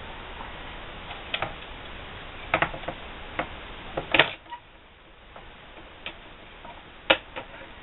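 Small, irregular clicks and taps as the wire-harness plugs and the circuit board of a SatLink satellite finder meter are handled and pushed together; the loudest click comes about four seconds in. A steady background hiss falls away just after it.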